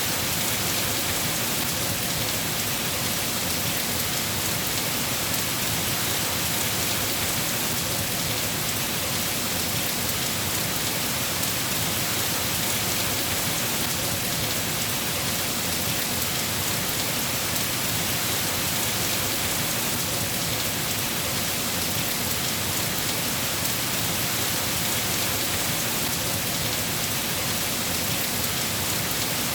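Steady rain falling on a surface: a dense, even hiss of drops with no pauses or separate impacts.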